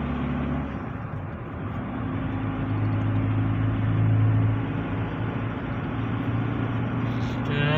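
A car driving on a road, heard from inside the cabin: steady engine hum and tyre noise, swelling for a couple of seconds around the middle and then easing.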